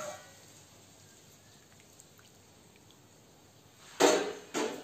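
A steel plate with water in it, used as a pot lid, is set down on a gas stove: two sharp metal clanks about four seconds in, after a quiet stretch of handling.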